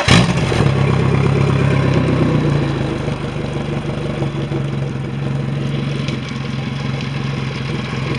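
Suzuki 150 outboard motor, just started, idling steadily on test run. It runs a little faster and louder for the first two seconds or so, then settles to a slightly lower, even idle.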